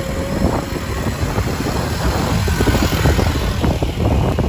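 Quad bike (ATV) engines running as two of the quads pull away, heard as a rough, uneven rumble with a lot of low noise.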